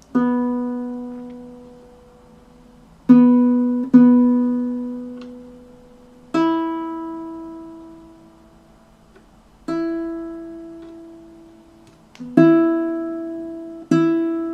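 Sound-sation baritone ukulele, single notes plucked one at a time and left to ring out, about seven in all with gaps of a second to three seconds between them, each fading slowly.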